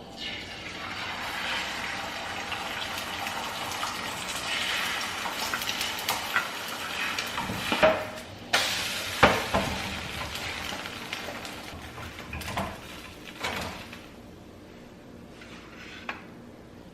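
Food sizzling in a frying pan, with a utensil clinking and scraping against the pan. The sizzle dies away about three seconds before the end, leaving a last faint clink.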